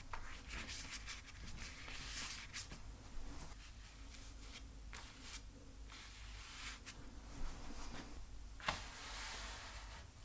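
Painting strokes scratching and rubbing on a canvas, one after another, with a longer stroke near the end and two sharp taps shortly before it.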